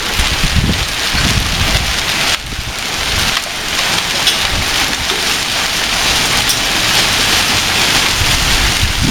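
Hailstorm: heavy rain and hail pelting down in a loud, steady hiss. Low gusts of wind buffet the microphone during the first couple of seconds.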